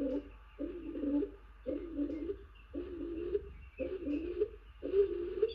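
Stock dove cooing over and over, a low phrase about once a second, each lasting about half a second.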